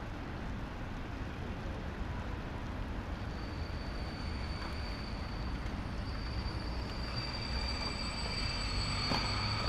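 Skate park ambience: a steady low rumble, with a high-pitched squealing whine coming in about three seconds in and growing louder toward the end, joined by further whining tones.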